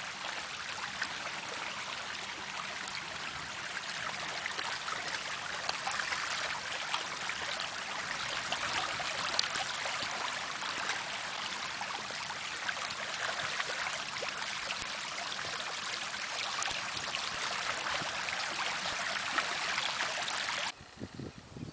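Running water: a small stream trickling and splashing steadily, cutting off suddenly near the end.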